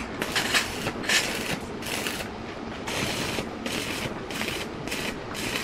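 Stick-welding arc crackling in short bursts, about eight in quick succession, as the welder strikes and breaks the arc in pulses to tack and stitch-weld thin steel tubing.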